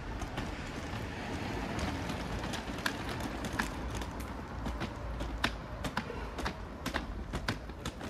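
Footsteps of someone walking on city pavement, about two steps a second, over a steady low street hum.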